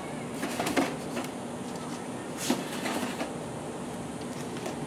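Red plastic cups being pulled from a stack and set into the pockets of an EPS foam planter: a few light clicks and knocks, the sharpest about halfway through, over a steady low hum.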